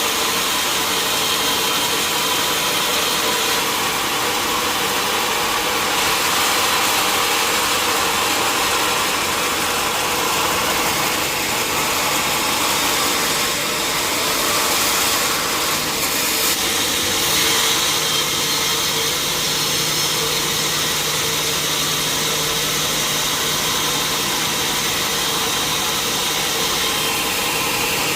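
Sawmill machinery running steadily with a loud, even whir. A low hum joins about halfway through.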